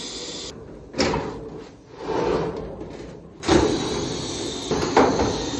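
Clothes dryer being worked by hand: sharp clunks about a second in and again past the middle, each followed by a rushing, rumbling noise as its parts move, while the control knob is tested for the drum not spinning.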